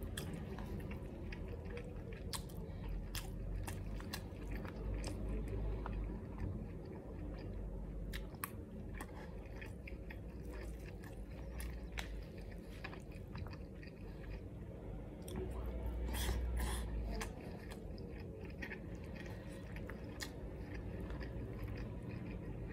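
Close-miked chewing of a mouthful of nasi goreng pattaya, fried rice wrapped in omelette: wet mouth sounds with many small sharp clicks and smacks, growing louder for about a second a little past the middle.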